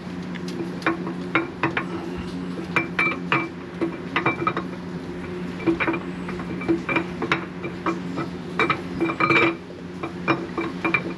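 Irregular metal clinks and knocks of steel engine parts as the camshaft is worked out of an Oldsmobile 307 V8 block, over a steady low hum.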